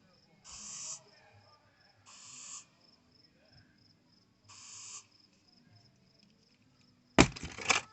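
Consumer fireworks: three short spurts of sound, each about half a second, spaced irregularly, over a steady high insect trill; about seven seconds in, a sudden loud bang followed by crackling.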